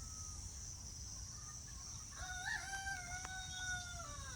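A rooster crowing once, starting about two seconds in: a short rising bump, then a long held note that falls away at the end. A steady high-pitched drone runs underneath.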